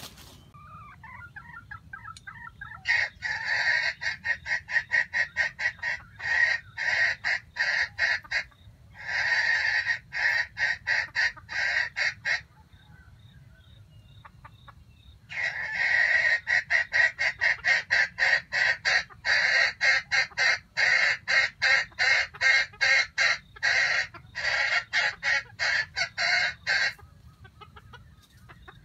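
Chicken clucking rapidly in long runs of sharp, evenly repeated notes, several a second, with a pause of a few seconds in the middle.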